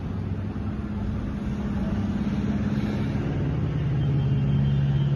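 Steady low mechanical drone with a rushing noise. Its hum drops in pitch about three and a half seconds in and grows a little louder toward the end.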